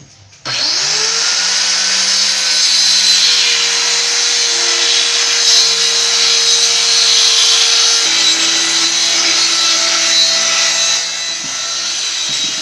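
An electric power tool spins up about half a second in and runs with a steady whine and hiss, cutting the wooden panel of a speaker box. Its pitch drops a little partway through as the load changes.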